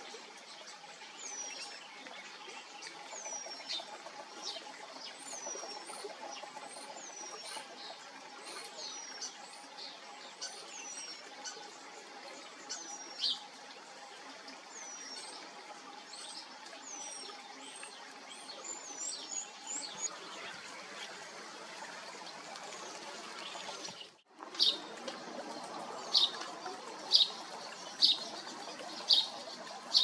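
Eurasian penduline tits calling: thin, high, falling whistles repeated about every second or so. After a short break near the end, louder, sharper high calls come about once a second.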